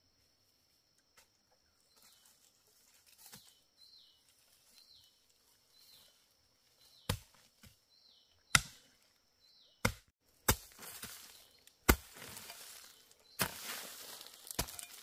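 A hoe chopping into earth to dig out a bamboo shoot. About seven sharp blows start about halfway in, roughly one every second and a half, with soil and dry leaves scraping between the later strokes.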